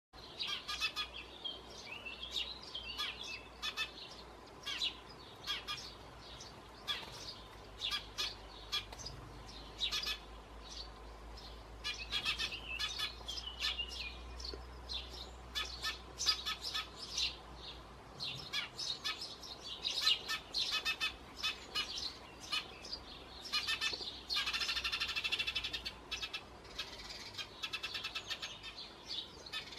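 Eurasian tree sparrows chirping: many short, high chirps in quick runs, with a dense, louder stretch of calling lasting about a second and a half near the end.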